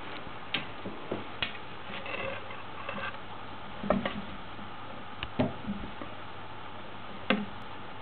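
Cat moving about and pawing inside a ceramic bathroom basin: scattered light taps, scrapes and knocks at an uneven pace, the sharpest about four, five and a half and seven seconds in.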